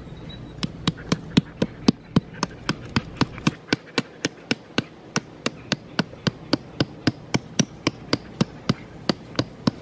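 A hand-held rock striking the top of a hook-topped metal tent stake, driving it into gravel. The sharp blows come in a steady run of about four a second, beginning about half a second in.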